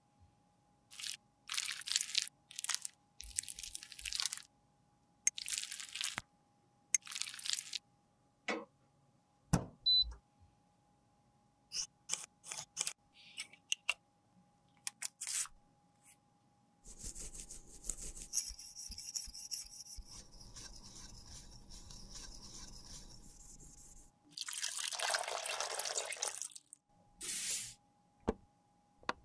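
Metal spatula scraping leftover lipstick out of a lipstick tube in several short strokes, then small clicks and taps as the emptied plastic tube is handled. Later comes a steady hiss lasting several seconds, and a louder hiss near the end.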